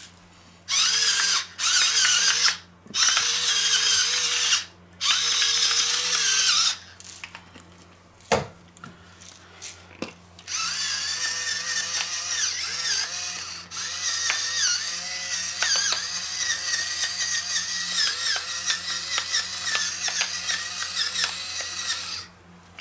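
Battery-powered electric salt and pepper mills grinding over meat. A small motor whines in four short bursts of about a second each, then runs continuously for about twelve seconds from near the middle, its pitch wavering slightly as it grinds.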